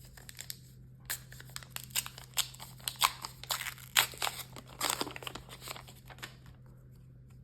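Foil trading-card booster pack wrapper being torn open and crinkled in the hands, a quick run of sharp crackles lasting about five seconds.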